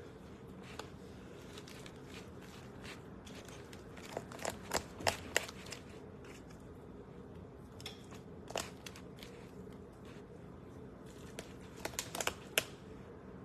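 Kitchen handling sounds: scattered light clicks and taps with some crinkling, bunched into quick runs about four to five seconds in and again near the end, over a low steady hum.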